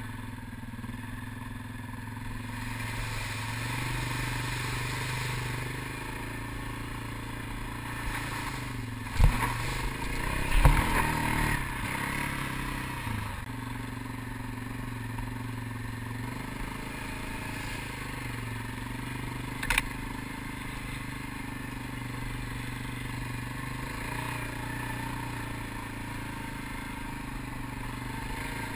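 ATV engine running while the quad is ridden over sand and dirt, its pitch rising and falling with the throttle. A few loud knocks and rattles come about nine to eleven seconds in, and a single sharp click just before twenty seconds.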